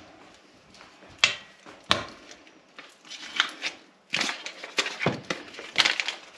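Kitchen utensil knocking and clattering against a frying pan as frying fat is spooned into it: two sharp single knocks, then a busier run of clicks and knocks over the last few seconds.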